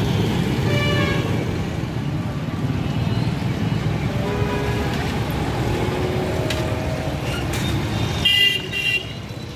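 Street traffic noise: a steady low rumble of vehicles with scattered horn toots, one short, brighter toot near the end.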